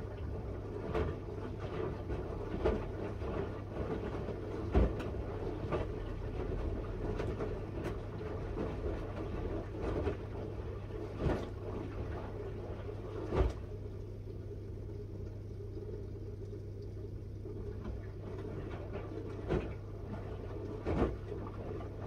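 Miele W1 front-loading washing machine running a wash: a steady low hum with short thuds every one to two seconds as the drum turns the laundry, and a gap of several seconds in the thuds past the middle.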